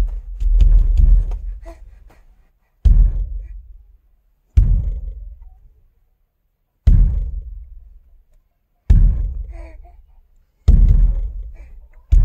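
A series of deep booming thuds, about one every two seconds, each starting sharply and fading away over a second or so into complete silence.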